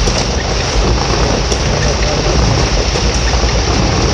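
Heavy rain pouring down, a loud steady hiss with a low rumble underneath.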